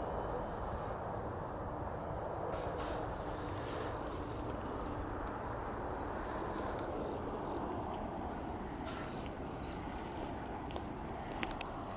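Steady outdoor ambience with a continuous high-pitched insect chorus, and a couple of faint clicks near the end.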